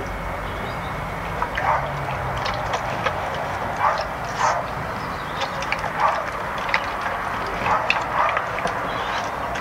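A border collie–rottweiler cross eating wet food from a steel bowl: irregular chewing and smacking, about one or two a second, with sharp clicks of teeth and tongue against the bowl.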